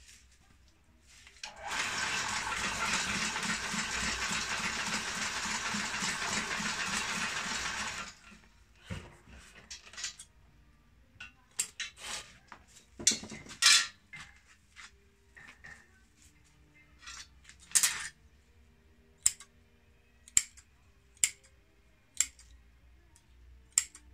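A homemade broom-binding machine runs with a steady mechanical noise for about six seconds, then stops. After it come short, sharp clicks and snips, the last ones about a second apart, from scissors trimming the straw broom.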